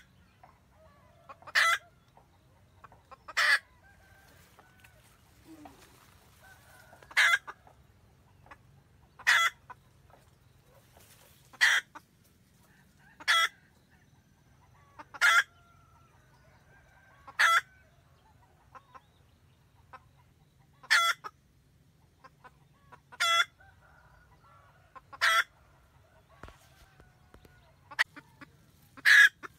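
Red junglefowl hen cackling: a dozen or so short, sharp calls, one about every two seconds. This is the hen calling to the cock.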